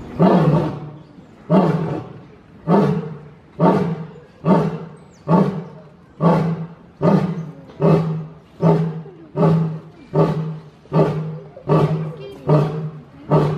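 Male lion roaring in the grunting part of a roaring bout: a long run of short, deep grunts, about one a second at first and coming steadily faster toward the end.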